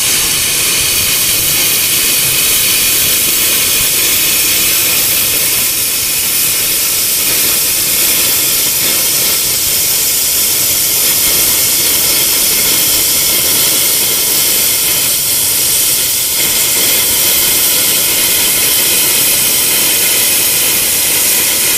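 Air plasma cutter cutting through 10 mm thick steel plate: the loud, steady hiss of the compressed-air plasma arc, unbroken while the torch travels along the cut.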